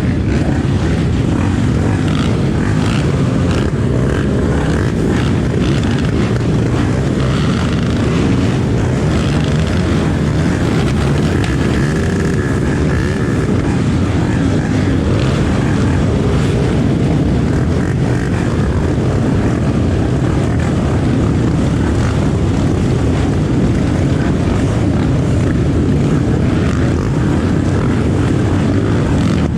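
Honda Tornado 300cc trail motorcycle's single-cylinder engine running steadily while riding, mixed with rough wind rush on the action camera.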